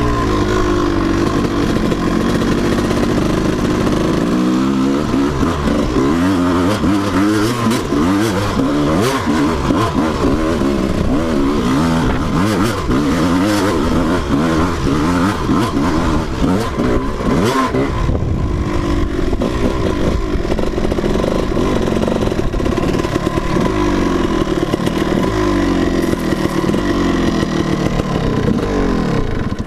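Dirt bike engine heard from on board, revving up and falling back again and again as the bike rides a rough dirt trail and climbs a steep hill.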